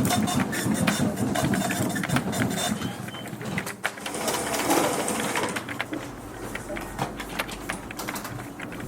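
Office ambience: a printing office machine running with a busy mechanical chatter, mixed with scattered sharp clicks like keyboard keys.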